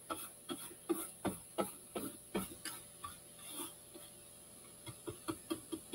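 Paintbrush strokes on a cardboard box, a quick run of short scratchy taps about three a second that thins out midway, with a few softer ones near the end.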